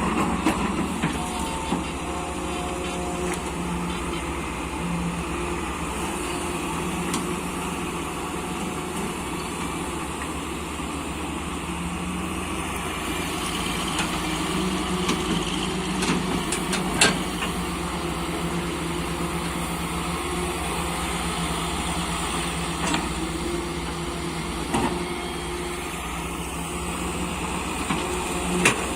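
Hydraulic excavator's diesel engine running steadily, with a few sharp knocks, the loudest about halfway through.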